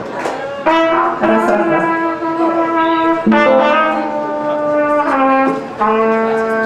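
Live band music: brass instruments playing long held notes in three phrases, starting about a second, three seconds and six seconds in.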